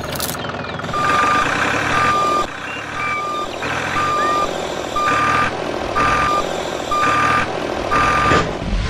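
A vehicle reversing alarm beeping steadily, about one half-second beep per second, eight beeps in all, over steady background noise.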